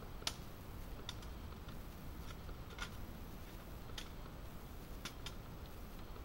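A folding metal Firebox hobo stove being unfolded and set up, its hinged panels giving a handful of short, sharp metallic clicks and taps, the sharpest about a quarter second in.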